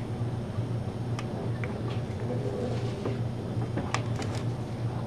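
Faint plastic clicks and taps as a plastic brake fluid reservoir is worked down onto a master cylinder's wetted rubber seals by hand, with a small cluster of taps near the end, over a steady low hum.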